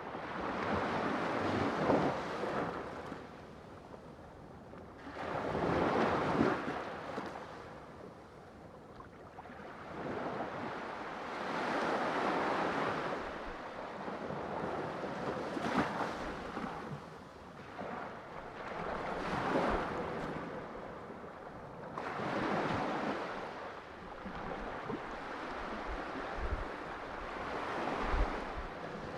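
Sea waves breaking and washing in, swelling and fading in surges every three to four seconds, with some wind noise.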